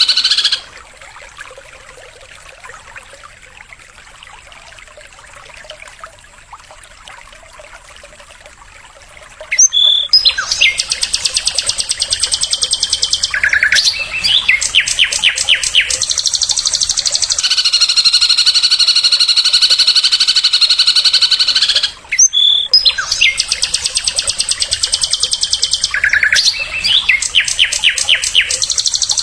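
Recorded songbird song: fast, high buzzing trills broken by runs of sharp clicking notes, starting loud about ten seconds in after a quiet stretch, then breaking off briefly and starting over in the same pattern, like a looped recording.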